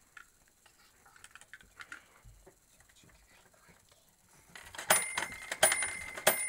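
Faint clicks of small plastic toy pieces being handled, then, about four and a half seconds in, loud sharp clicks over a steady ringing tone as a hand works the vintage Fisher-Price parking garage toy.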